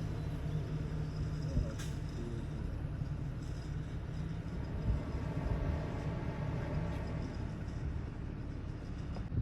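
Motor vehicle running, heard as a steady low engine and road hum with a few faint knocks.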